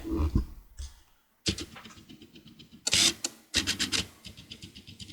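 Handling noises of work on a laptop's plastic case: a knock, rubbing and scraping, and two short bursts of rapid clicking.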